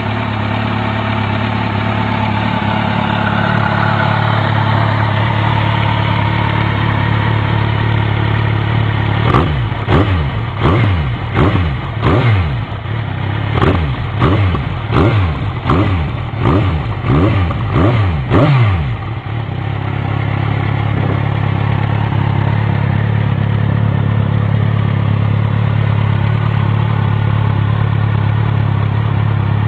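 Kawasaki Z1000 inline-four running through a twin-silencer Laser GP aftermarket exhaust, idling steadily. About nine seconds in it is blipped about a dozen times in quick succession, each rev rising and falling back, then it settles back to a steady idle.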